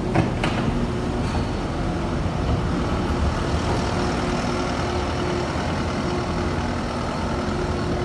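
Diesel engine of heavy farm machinery running steadily at a low hum, with three sharp knocks in the first second and a half.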